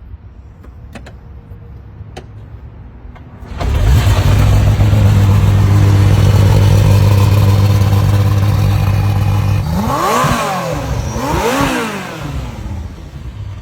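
Czinger 21C's twin-turbo V8 starting after a few faint clicks: it catches about three and a half seconds in, runs at a steady high idle, then is blipped twice in quick rising-and-falling revs before dropping back to a lower idle.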